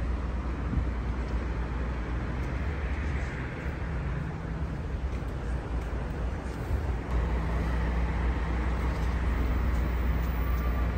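Steady road traffic noise from a busy multi-lane city road, a continuous wash of car and bus sound with a heavy low rumble.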